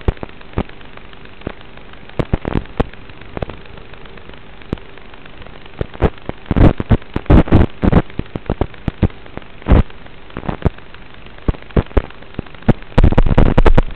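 Hiss and crackling static from an analog FPV video receiver's audio channel, with scattered sharp pops that bunch up in the middle and turn into a fast, loud crackle near the end.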